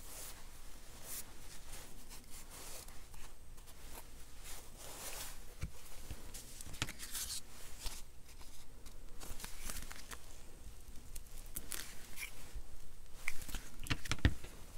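Paper crafting materials being handled on a cutting mat: card and paper rustling and sliding, with a few light clicks and knocks as items are picked up and set down.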